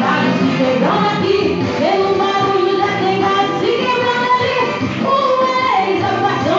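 A woman's voice singing a Christian worship song of praise over instrumental accompaniment, with long held notes.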